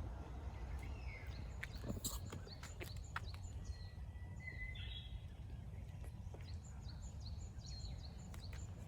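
Forest ambience: a steady low rumble of wind under scattered small birds chirping, with a thin held whistled note about four seconds in and quick high chirps growing more frequent toward the end. A few sharp clicks and crackles come in the first three seconds.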